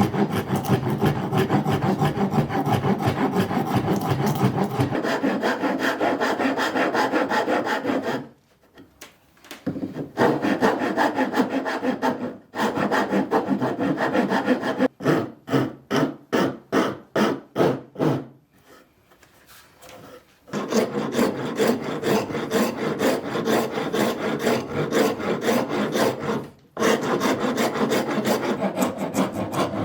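Rapid back-and-forth rubbing strokes of hand work on an old handsaw. They stop twice for about two seconds, about a third and about two-thirds of the way in, and there are about three strokes a second just before the second stop.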